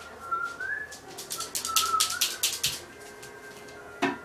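A whistled tone gliding up in pitch at the start and again about two seconds in, over a quick run of clicks or rustling. A single sharp knock comes near the end.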